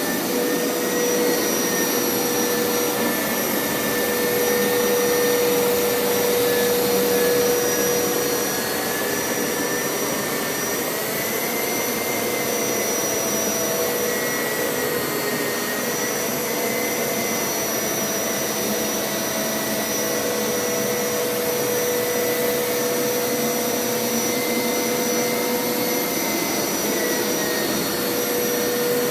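Hoover Power Scrub Elite carpet washer running steadily: a constant motor whine over rushing suction noise, its pitch wavering slightly as the load changes.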